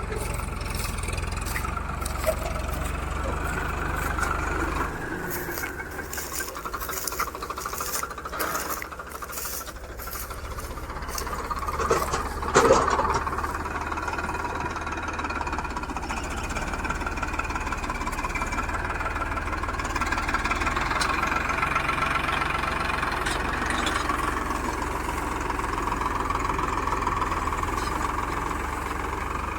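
Farmtrac 6055 tractor's diesel engine running steadily. A series of clicks and knocks comes between about six and ten seconds in, and a loud knock about halfway through.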